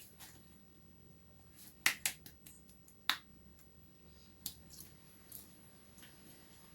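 Eating sounds: a few short, sharp mouth clicks and smacks while chewing, spaced irregularly about a second apart.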